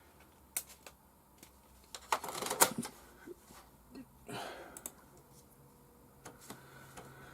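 Scattered clicks and clatter of 3.5-inch floppy disks being handled at an Amiga, with a louder burst of clatter about two seconds in.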